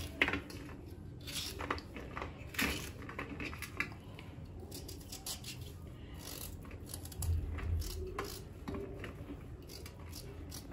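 Small knife cutting green bell pepper and carrot in the hand, with chunks dropping onto a stainless steel plate: scattered light clicks and clinks.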